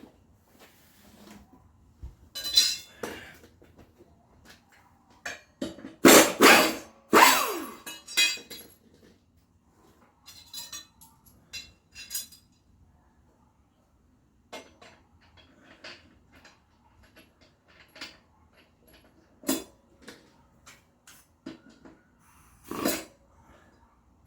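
Scattered metallic clanks and clinks, a few ringing briefly, with the loudest cluster about six to eight seconds in: steel mower blades and tools being handled.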